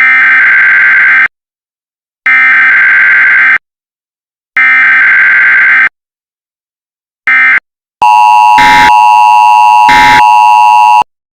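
Mock Emergency Alert System alert: three harsh, buzzy data-header bursts about a second apart, then a short fourth burst. About eight seconds in comes the steady two-tone attention signal, lasting about three seconds, with two brief crackles of noise cutting across it.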